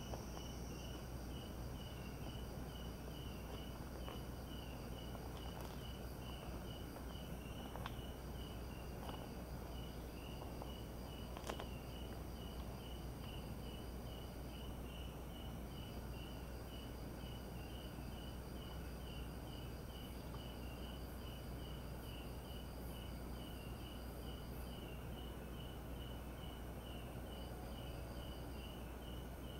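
Crickets and other night insects chirping. One keeps up a steady pulsing trill of about three pulses a second. A higher-pitched one sings in long stretches broken by short pauses, and a single sharp click sounds about eleven seconds in.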